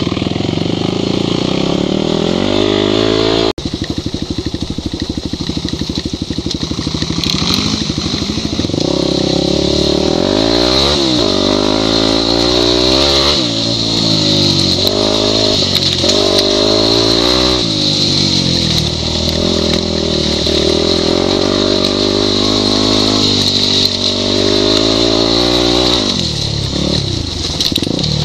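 Yamaha WR250 dirt bike's four-stroke single-cylinder engine being ridden hard off-road, its pitch climbing and dropping every second or two as the throttle is opened and closed. The sound breaks off sharply about three and a half seconds in, then the revving picks up again.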